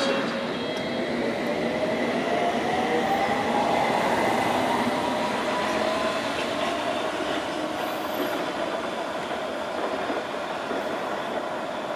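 London Underground S8 Stock train accelerating away, its traction motors giving a whine that rises in pitch over the first few seconds and then holds steady, over the rumble of wheels on rail.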